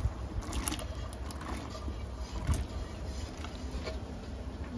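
Nixtamalized corn kernels dropped by hand into a pot of simmering pork broth, making a few small splashes, over a steady low rumble.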